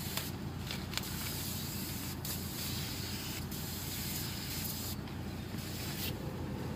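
Hand-held hose spray gun hissing steadily as it sprays a liquid fruit nutrient onto a bunch of grapes, the spray easing briefly twice in the last couple of seconds.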